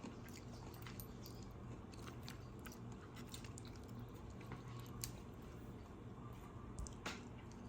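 A person chewing food, with small scattered clicks and crunches over a faint steady low hum.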